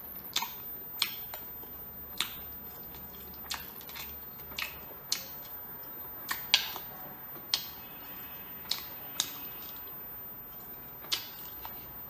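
Chopsticks and small sea-snail shells clicking against each other and the plate while the snails are picked at and eaten: sharp, irregular clicks about once a second.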